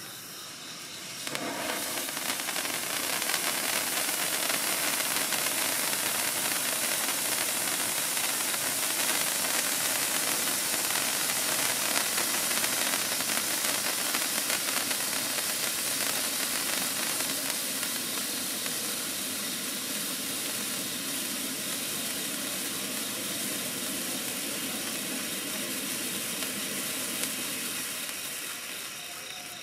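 Handheld stick fountain firework with titanium spark rain, burning with a steady, loud spraying hiss. It catches about a second in, eases a little in the second half, and dies away near the end.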